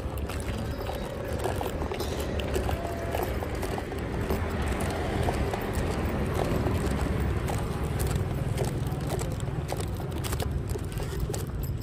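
Outdoor street ambience: a steady low rumble of road traffic, swelling in the middle, with scattered light clicks and knocks.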